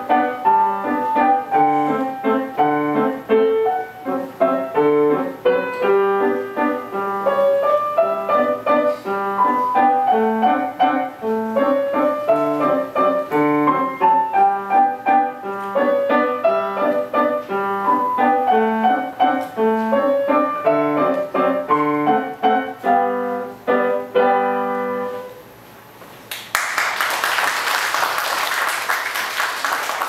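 Grand piano played solo: a lively piece of quick, rhythmic notes over a repeating bass, ending with held chords about 25 seconds in. After a short gap, an audience applauds.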